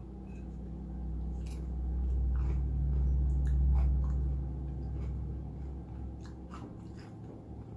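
Close-miked chewing of food, with scattered wet mouth clicks. A low rumble swells through the middle and fades out.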